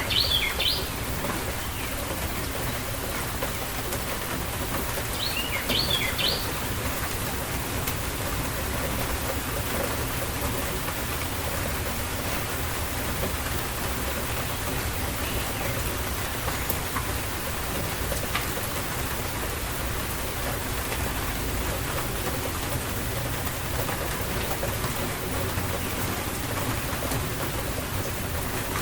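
Steady rain falling, with a bird giving short chirps twice: at the start and about six seconds in.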